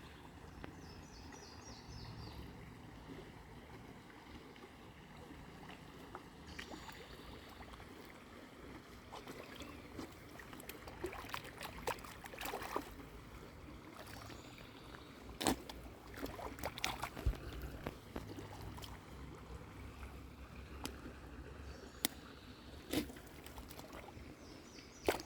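Faint water lapping and trickling, with scattered small clicks and taps starting about ten seconds in.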